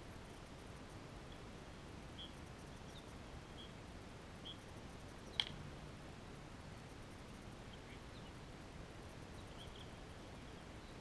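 A bat hitting a pitched ball once, a single sharp crack with a short ring about halfway through, over a steady background hiss. Faint short high chirps come and go throughout.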